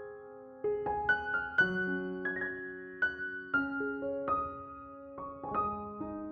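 Background music: a slow, gentle piano melody, single struck notes ringing and fading, with a brief pause about half a second in.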